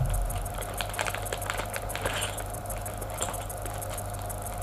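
Crinkling and clicking of a small plastic bag of hardware being handled, a quick run of short crackles that thins out after about three seconds, over a steady low hum.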